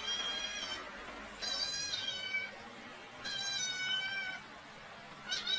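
Cat meowing over and over: high-pitched meows about a second long each, coming roughly every two seconds, each dropping a little in pitch toward its end.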